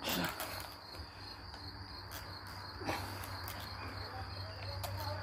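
Crickets chirring in a steady, evenly pulsing high trill. Two short sounds sweep down in pitch over it, one at the very start and one about three seconds in.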